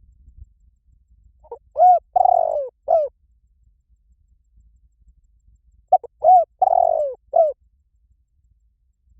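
Spotted dove cooing: two phrases of about four notes each, a few seconds apart. Each note rises and falls in pitch, and the longer third note of each phrase is the loudest.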